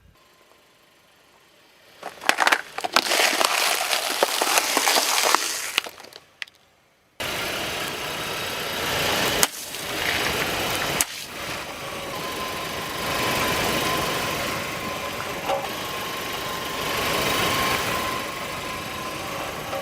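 Crunchy objects being crushed under a car's tyre. A few seconds of dense crackling and sharp cracks come first, then after a short break a longer stretch of crackling, crunching noise with a few louder cracks.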